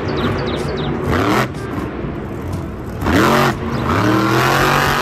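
Monster truck engine revving up and easing off several times over a continuous noisy rumble.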